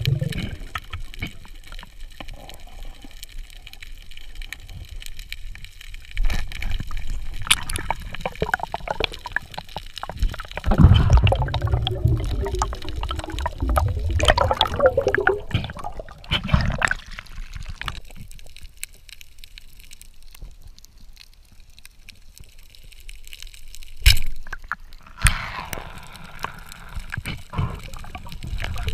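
Water gurgling and bubbling in irregular surges, with low rumbles, and one sharp knock late on.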